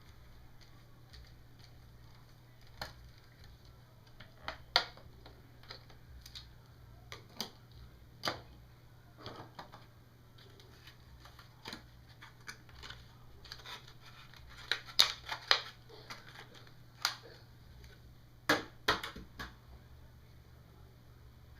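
Scattered clicks, taps and light plastic clatter of hands working on an HP Compaq 6730b laptop during a memory install, loudest in a quick cluster a little past the middle and another near the end, over a faint steady low hum.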